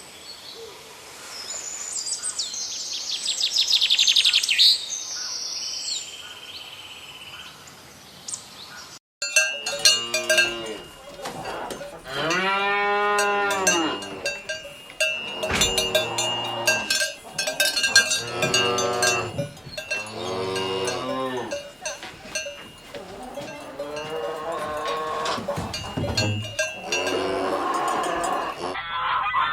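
Cows mooing again and again in long calls that rise and fall in pitch, with cowbells ringing steadily underneath. Before them, high-pitched chirping fills the first nine seconds and then cuts off abruptly.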